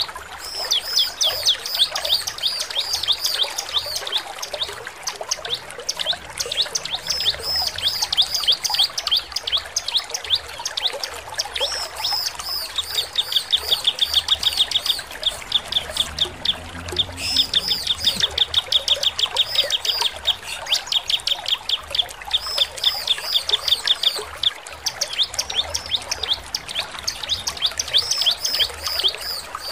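Bar-winged prinia (ciblek) singing persistently: fast, high, chattering repeated notes, broken by longer runs of very rapid identical notes.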